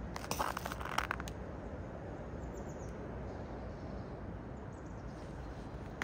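Steady low outdoor rumble, with a short burst of crackling, scraping clicks from about a quarter second to just over a second in, and one more click near the end.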